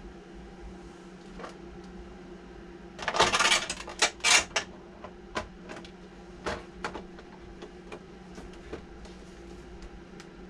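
Hard plastic body shell of an RC lowrider being handled and set onto its chassis: a burst of clattering about three seconds in, two sharp clicks just after, then scattered light taps and clicks, over a steady low hum.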